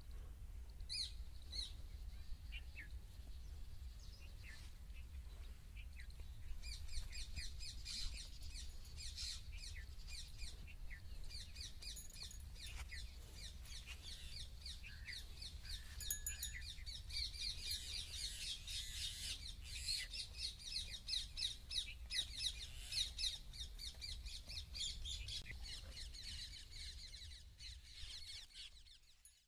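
A flock of small birds chirping in quick, overlapping calls, sparse at first and growing thick from about six seconds in, over a steady low rumble.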